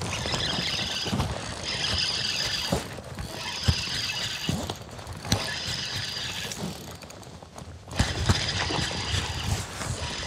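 Spinning reel squealing in about five bursts, each roughly a second long and coming about every two seconds, as a fish is fought on the line.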